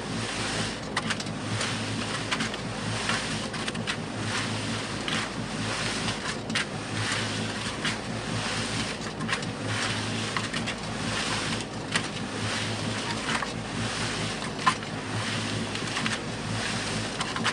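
Concrete mixer running with a steady motor hum while wet concrete and gravel tumble and scrape in the drum, giving a continuous gritty wash broken by many short irregular splashes. There is one sharp click near the end.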